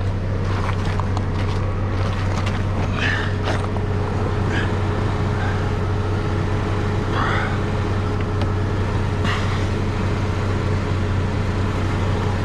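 Vehicle engine idling steadily, a low even hum, with a few brief knocks and clinks over it.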